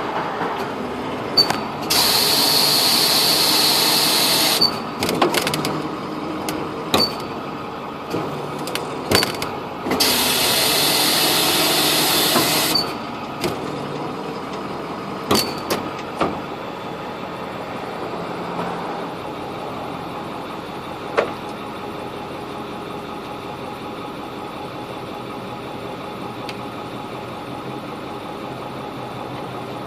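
Repo tow truck's hydraulic wheel-lift at work: two spells of loud hissing whine of a couple of seconds each, with clanks and clicks between them, over the truck's engine running steadily.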